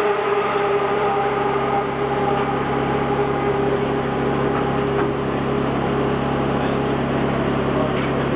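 McLaren MP4-12C GT3's twin-turbo V8 idling steadily at a constant pitch.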